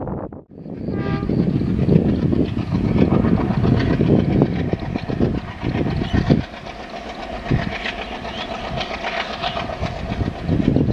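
ALCo WDG3A diesel locomotive hauling a rake of BCNA covered freight wagons past, its engine running with the wagons' wheels clattering over the rails. A brief horn note sounds about a second in.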